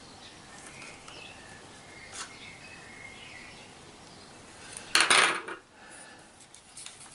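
A screwdriver prying and scraping at the plastic housing of a headphone ear cup: faint squeaky scrapes and a small click, then one loud, brief scraping clatter about five seconds in as the part gives.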